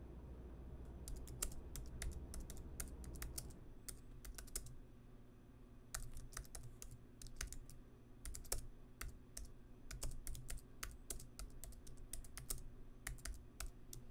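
Typing on a computer keyboard: irregular runs of key clicks, with a short pause about five seconds in.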